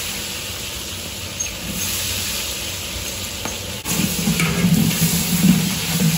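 Sizzling of frying in a large cooking pot, with a ladle stirring it. About four seconds in the sound cuts abruptly to a louder, uneven low rumble.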